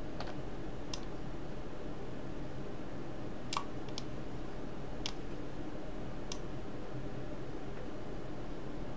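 Computer mouse clicks, about six short sharp ones spread across a few seconds, the strongest about three and a half seconds in, over a steady low background hum.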